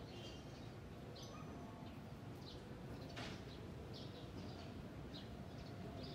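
Small birds chirping in short, repeated calls over a low steady rumble of background noise, with one brief hiss about three seconds in.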